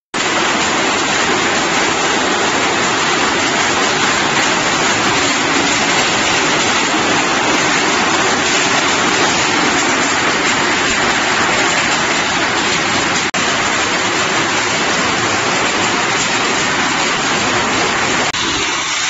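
Loud, steady, even rushing din of a steel pipe-making line at work: the strip slitting line and the strip feeding into the spiral accumulator, with a brief break about thirteen seconds in.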